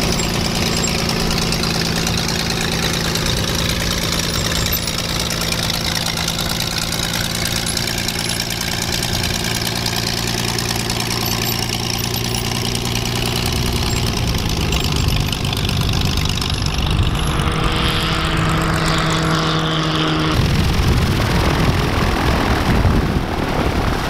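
Light aircraft piston engines and propellers running at low power as the planes taxi. The engine note shifts about halfway through and changes abruptly near the end to a rougher noise.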